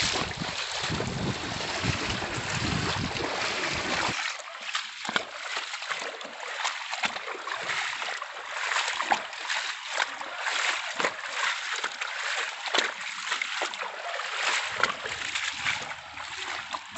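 Floodwater rushing and splashing over a road, a steady noisy rush. About four seconds in the deep part of the noise drops away, leaving a higher hiss scattered with small splashes.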